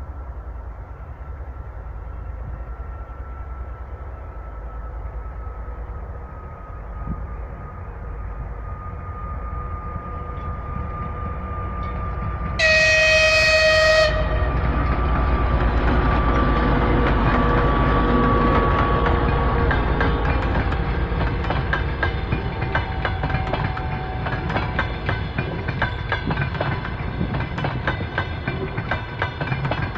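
Passenger train approaching with rising rumble. The locomotive sounds its horn once, a loud chord-like blast lasting about a second and a half, near the middle. It then passes with rhythmic wheel clatter over the rail joints.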